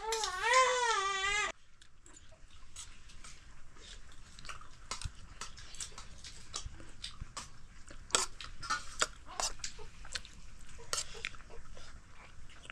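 Newborn baby crying in wavering, high-pitched wails that cut off suddenly about a second and a half in. Then come scattered light clicks and taps.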